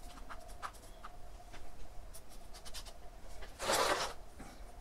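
Fingers scratching and rustling in gritty perlite potting mix while settling jade plants in their pot, with small clicks and one louder rustling scrape about three and a half seconds in.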